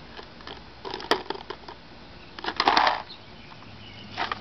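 Skateboard tail snapping and the deck and wheels clattering onto asphalt during ollie attempts. There is a sharp knock about a second in, then a cluster of clacks with a short scrape a little before three seconds, and more knocks near the end.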